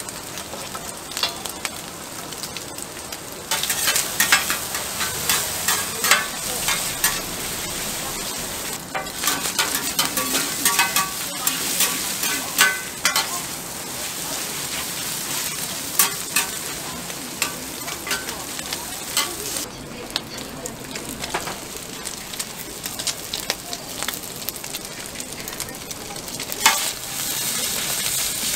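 Pork intestines sizzling on a hot flat-top griddle while two slotted metal spatulas scrape and clack against the griddle, stirring and tossing them. The sizzle grows louder about three and a half seconds in.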